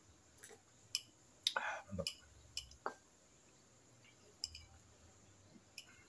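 A few scattered light clicks and clinks of a glass mug and a plate being handled, with soft mouth sounds of sipping and eating between them.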